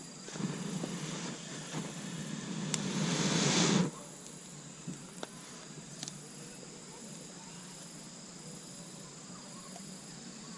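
Insects trilling steadily in the background as a high thin whine. A hiss rises for about three and a half seconds and cuts off suddenly, followed by a few light clicks.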